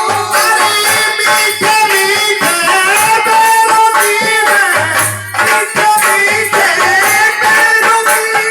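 Devotional bhajan music: a held melody line over a steady beat of shaker-like rattle percussion, with low drum thuds.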